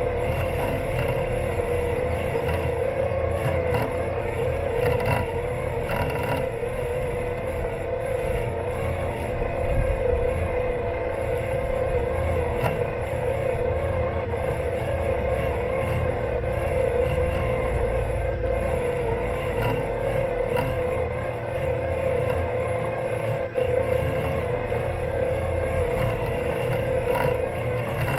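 Robot lawn mower's electric motors running with a steady whine, heard close up through the mower's body, over a low rumble.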